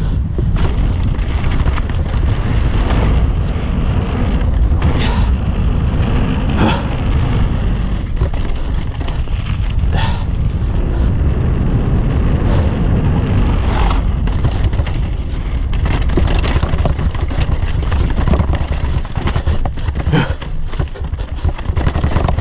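Mountain bike descending a gravel and rock trail, heard from a helmet-mounted camera: heavy wind buffeting on the microphone over the rumble of tyres on stones. Occasional sharp knocks and rattles come from the bike hitting rocks.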